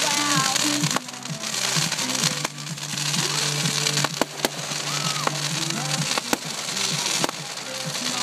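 Aerial fireworks going off: several sharp bangs over a continuous crackling hiss. Music plays underneath.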